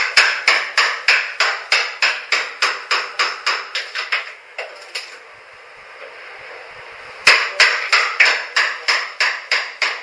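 Hammering: quick, regular blows about three or four a second. The run stops a little under halfway, then starts again a couple of seconds later.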